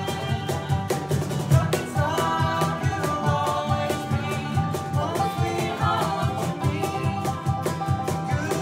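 Bluegrass band playing live, with banjo, fiddle and acoustic guitars over a steady strummed beat, and a voice singing the melody.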